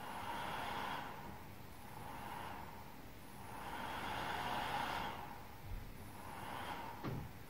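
Dell WD19TB dock's cooling fan surging and dying away over and over, its rush swelling and fading about four times like breathing, with a brief click near the end. It is the sign of erratic fan-speed control in a cold dock, which the owner suspects comes from a fault in the fan controller or the temperature sensor.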